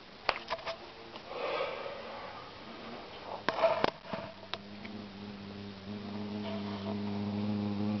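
A few sharp knocks and a rustle of handling, then from about halfway an insect's wing buzz, a steady low drone that slowly grows louder.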